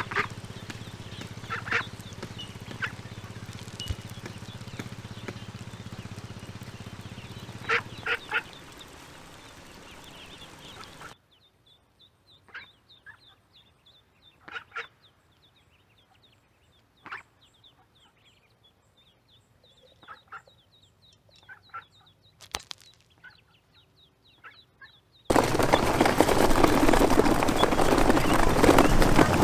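Ducklings and ducks calling: scattered loud quacks over a steady low hum, then a much quieter stretch with occasional calls, and from near the end a loud continuous din of a crowded pen of ducklings.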